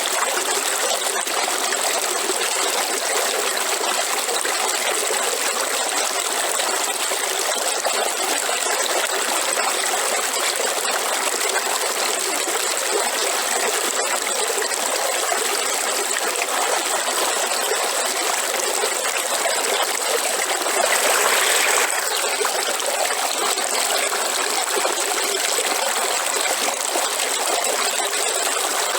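River water flowing in a steady, even rush, with a brief louder surge a little past two-thirds of the way through.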